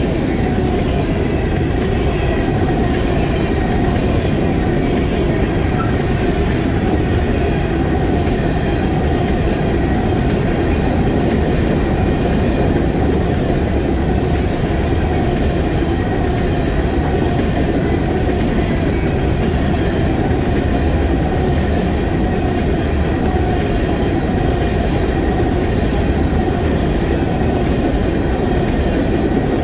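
A train rolling steadily past close by, its steel wheels running over the rails in an unbroken, loud rumble.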